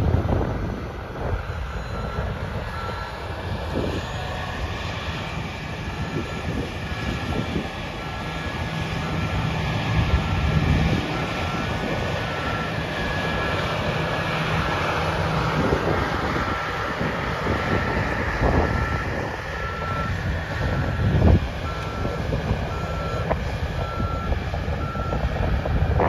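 Farm harvest machinery running steadily, with wind buffeting the microphone. A backup alarm beeps about twice a second through most of it.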